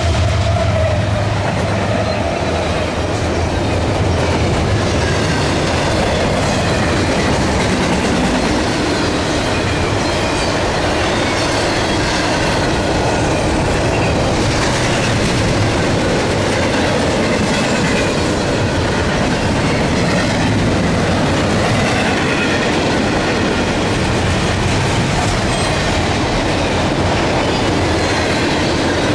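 CSX intermodal train passing at speed: the locomotives' low engine drone and a falling tone fade in the first couple of seconds. Then comes a steady rush of double-stack container well cars rolling past, wheels clattering over the rail joints, with faint wheel squeal at times.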